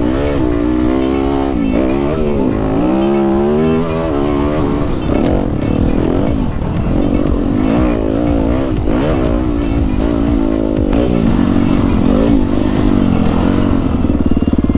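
Yamaha WR250F four-stroke single-cylinder dirt bike engine under way, its pitch rising and falling as the rider works the throttle and gears. It settles to a steadier, lower note near the end as the bike slows to a stop, with wind rumble on the helmet-mounted microphone throughout.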